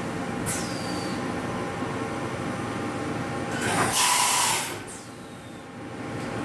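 Vertical machining center running an automatic machining cycle: steady machine noise with several held tones. About three and a half seconds in, a loud hiss like a spray lasts about a second, then the running quietens briefly before picking up again.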